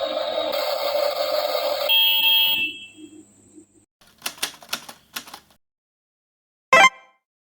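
Toy excavator sounds: a steady noise that fades out about two and a half seconds in, then a quick run of clicks, then one short horn-like electronic beep near the end.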